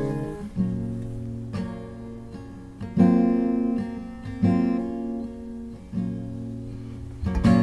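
Acoustic guitar music: slow chords strummed about every second and a half, each left to ring and fade.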